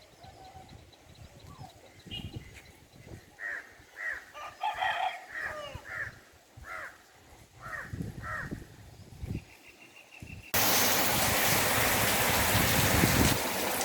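Birds calling in a run of short repeated notes, with a rooster crowing among them. About ten seconds in, it cuts suddenly to a loud, steady rush of water.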